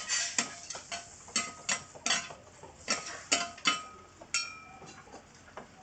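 Metal spatula scraping and clinking on a flat iron griddle as pieces of pork offal are pushed and turned: about a dozen sharp, irregular strikes, some with a brief metallic ring. The strikes stop about four and a half seconds in.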